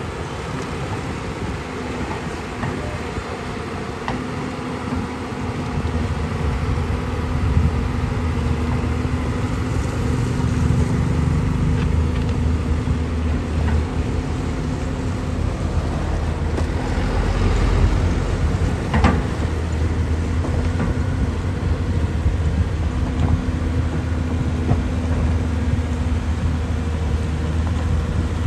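Caterpillar 320 excavator's diesel engine running steadily, growing louder about six seconds in, with one sharp knock a little past the middle.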